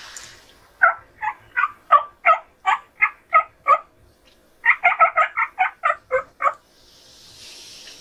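Wild turkey yelping: a steady run of about nine yelps, then after a short pause a quicker run of about ten.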